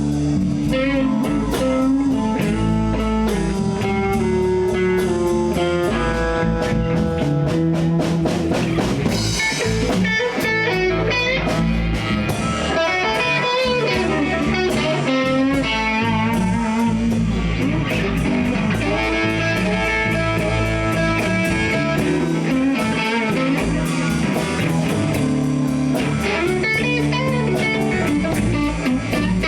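Live blues band playing an instrumental passage: electric guitar lines over bass guitar and drum kit.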